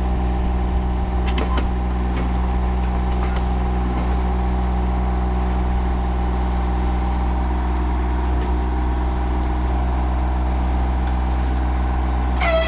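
Vehicle engine running at a steady speed: an even, unchanging low drone with a few faint clicks.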